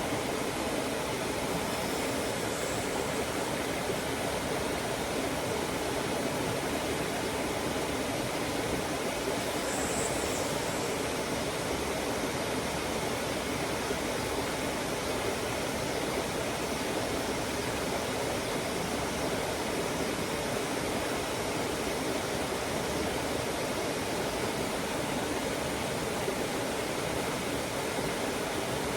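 Water rushing steadily over rocks in a stream, a constant even wash of sound.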